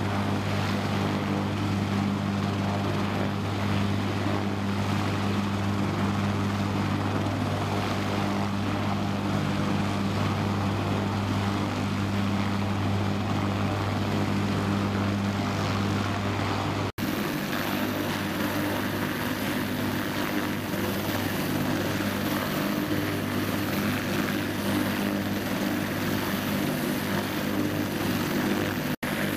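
Bell AH-1 Cobra attack helicopter running on the ground with its rotor turning while it is refuelled: a steady turbine-and-rotor drone with a strong low hum. The sound drops out for an instant at a cut about two-thirds of the way through and again near the end.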